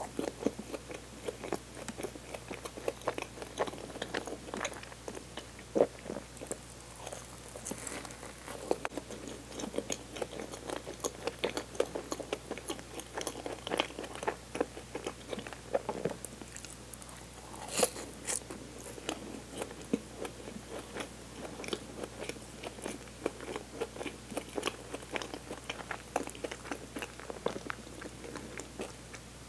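A person chewing and biting a Hostess Snoball, marshmallow and coconut-coated chocolate sponge cake, with many small irregular mouth clicks. One sharper click about eighteen seconds in.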